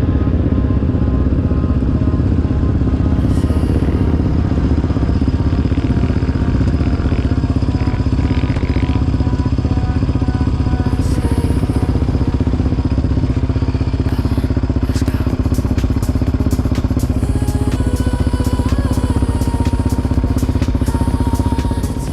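Quad (ATV) engine running at a steady speed while riding, with many small clicks and rattles over the top.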